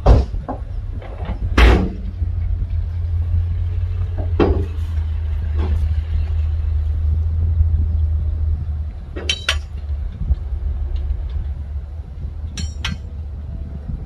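Heavy diesel earthmoving machinery running with a low, steady rumble that works harder for several seconds, broken by two loud knocks in the first couple of seconds and sharp metallic clinks later on.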